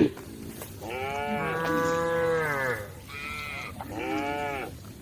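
Cows mooing: one long call about a second in, then two shorter calls close together near the end.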